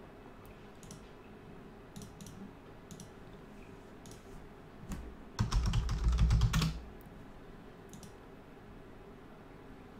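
Scattered clicks from a computer mouse and keyboard. About five and a half seconds in comes the loudest part, a burst of rapid keyboard clatter lasting about a second and a half.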